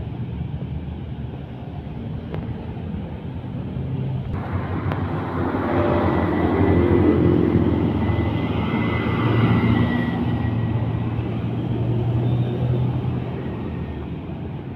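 Street traffic, then the diesel engine of a Mitsubishi Fuso 220PS dump truck running as it drives close past, getting louder and then easing off as it pulls away. A thin steady high whine rides over the engine while the truck is nearest.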